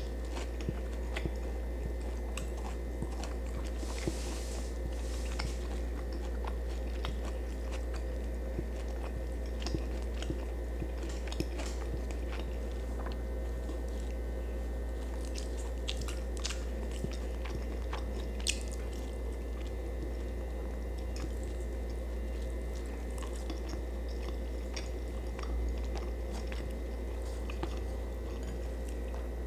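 A person chewing a mouthful of fried fish and sautéed bitter gourd close to the microphone, with many small wet clicks and crunches, over a steady low hum.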